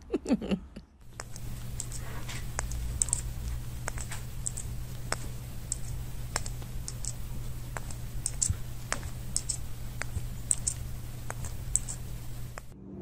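A brief voice-like call in the first second. Then irregular light clicks, about one or two a second, over a steady low hum.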